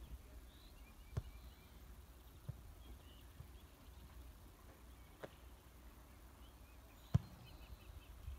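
Distant footballs being kicked in a volley shooting drill: about five sharp thuds a second or two apart, the loudest near the end, over a low steady rumble.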